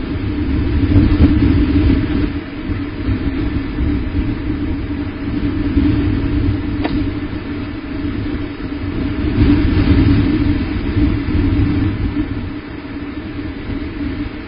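Steady low rumbling noise that swells and eases in loudness, with a single sharp click about seven seconds in.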